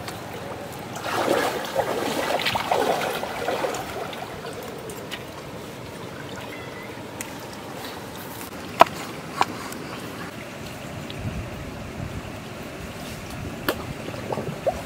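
A small stream trickling steadily. From about a second in, for a few seconds, louder wet scraping and handling of raw fish fillets on a log, with a few sharp clicks later on.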